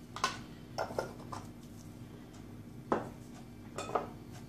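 Several light clicks and taps, about six spread irregularly over a few seconds: a spoon and spice jars being handled and set down on a kitchen counter.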